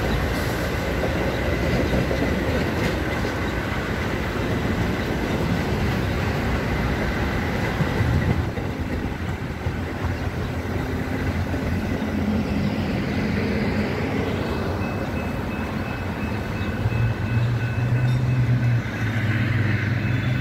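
Metra bilevel commuter coaches rolling past on the rails as an outbound train pulls out of the station: a steady rumble of wheels on track. A low steady hum joins near the end as the rear cab car goes by.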